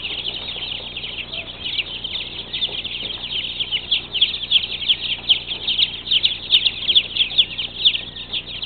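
A crowd of young chicks peeping constantly: many high, short, falling peeps overlapping into one dense chorus.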